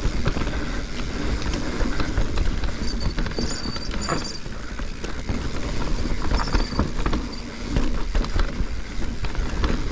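Mountain bike rolling fast down a dirt trail: tyre noise with constant rattling and knocking of the bike over roots and rocks. A thin high squeal from the disc brakes comes in briefly twice, about three and six seconds in.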